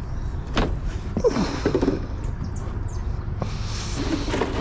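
A rubber boot stepping into a small flooded fibreglass speedboat: a few short squeaks and knocks against the hull, then water sloshing in the flooded cockpit.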